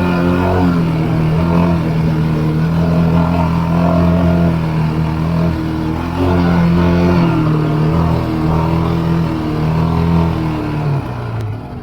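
ATV engine running hard under throttle, its pitch holding and then rising and falling as the rider works the throttle. It fades away near the end.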